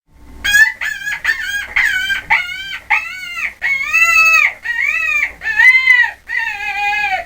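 A farm animal calling over and over: a string of short cries that rise and fall in pitch, the last few drawn out longer.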